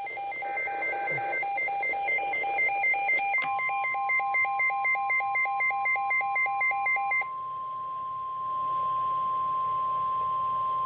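A weather radio's alert: a buzzy, two-pitched electronic beeping pulses rapidly and stops about seven seconds in. About three seconds in, the steady single-pitch NOAA Weather Radio warning alarm tone (1050 Hz) starts and holds, signalling that a warning follows.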